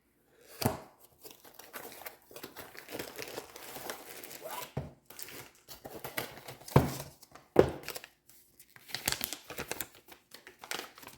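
Packaging crinkling and rustling as a freshly opened box is unpacked by hand, with a few sharp knocks of items being handled.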